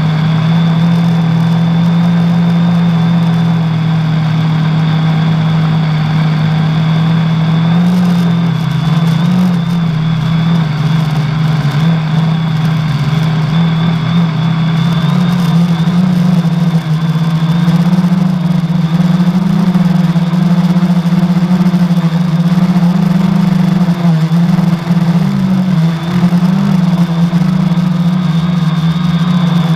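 Quadcopter's 1000 kV brushless outrunner motors spinning 10x4.5 propellers in flight, heard close up from the airframe: a loud, steady motor buzz with a thin high whine above it, wavering in pitch with throttle and running a little higher in the second half. The buzz carries the noise of a bad motor bearing.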